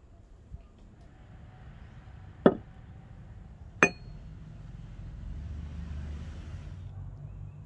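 Two sharp knocks about a second and a half apart, the second with a brief metallic ring, as a steel Hults Bruk hatchet head is set down on a rosewood blank lying on a wooden log.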